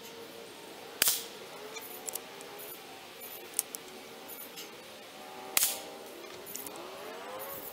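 AirForce Texan SS big-bore air rifle with TX2 valve firing light 125-grain bullets: two sharp reports with a short ring-out, about four and a half seconds apart.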